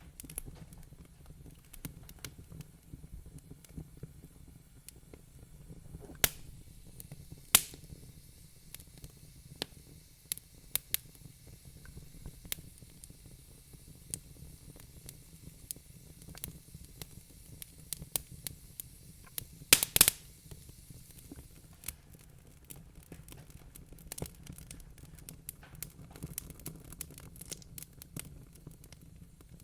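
Wood fire crackling, with irregular sharp pops and snaps over a low steady rumble. The loudest pops come as two single cracks early on and a quick cluster about two-thirds of the way through.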